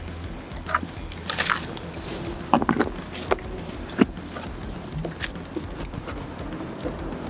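Hard plastic motorcycle top case being handled and opened: a string of irregular latch clicks, knocks and scrapes as the lid is unlatched and swung up.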